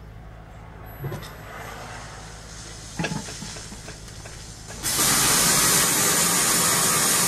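A few soft knocks, then a loud, even hiss like radio static that starts abruptly about five seconds in and holds steady.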